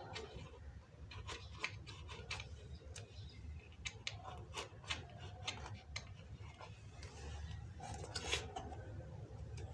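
Handling noise from a cardboard box as wires and parts are pulled out of it: irregular light clicks, taps and rubbing, a little louder just after the eighth second, over a low steady hum.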